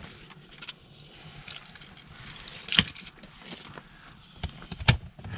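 Rustling and light clicking from handling, with two sharp clacks, one about three seconds in and a louder one near the end.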